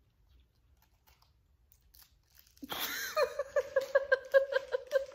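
A hard sherbet lemon candy being crunched and chewed, starting a little under three seconds in. Over it, a high voice sounds in quick rhythmic pulses, about five a second.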